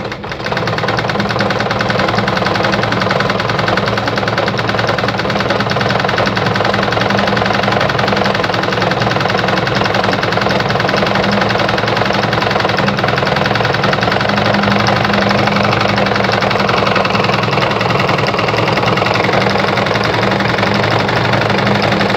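Juki DIA Rotary 7 sewing machine running steadily at speed, starting about half a second in, sewing a decorative stitch pattern set by an inserted disc cam, with a fast, even needle stroke.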